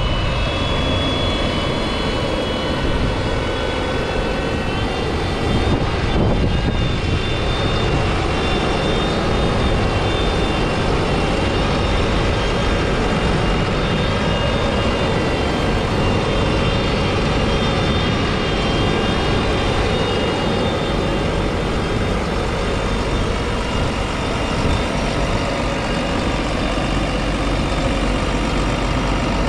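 McCormick X7.624 tractor's 6.7-litre six-cylinder diesel engine idling steadily at close range, with a steady high whine over the engine rumble.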